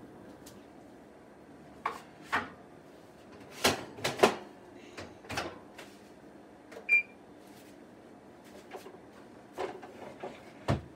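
Kitchen handling sounds: scattered knocks and clacks of cookware being moved and set down. About seven seconds in there is one short electronic beep from the stove's control panel.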